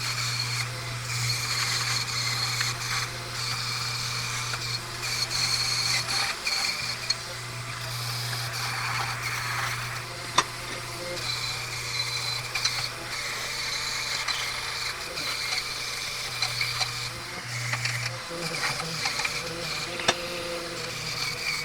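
Electric bench polishing or wire wheel running as the auger bits are worked against it: a steady motor hum under a scratchy rubbing noise. The hum stops a few seconds before the end.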